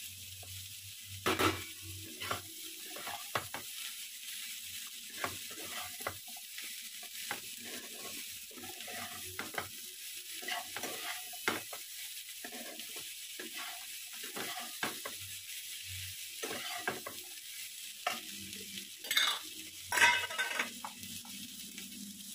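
Diced potatoes and onions sizzling in oil in a frying pan while a metal spatula stirs and scrapes them, with short irregular scrapes throughout and a few louder ones about a second in and near the end.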